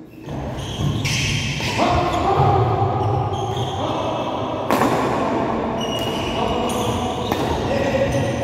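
Badminton rackets smacking the shuttlecock about once a second during a rally, with players' footfalls on the court, echoing in a large hall. Steady held tones that shift pitch every second or so run underneath.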